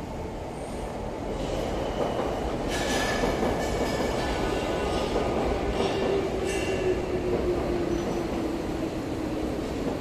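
Electric commuter train running on the elevated concrete viaduct overhead, its rumble building over the first two seconds. The wheels squeal with high tones from about three seconds in, and a motor whine falls slowly in pitch over the last few seconds.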